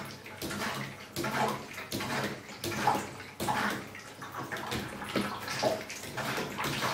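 Water splashing into a water rowing machine's acrylic tank in spurts, about two a second, driven by a hand-worked pump filling the tank with distilled water.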